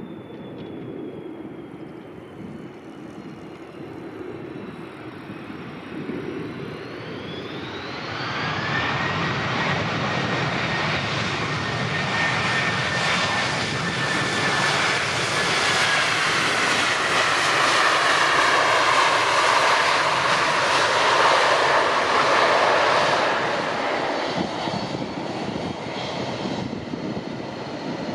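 An airliner's engines passing close overhead as it comes in to land, a whine over rushing noise. It grows louder through the middle, peaks about two-thirds of the way through, then eases off, with whining tones sliding up and down in pitch.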